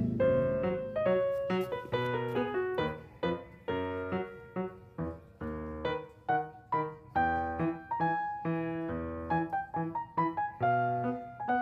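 Background piano music: a melody of struck notes, each fading away, with chords underneath.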